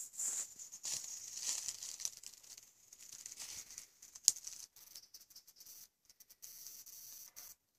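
European badger eating apples: irregular crunching and crackling, busiest over the first couple of seconds and sparser after, with one sharp snap about four seconds in.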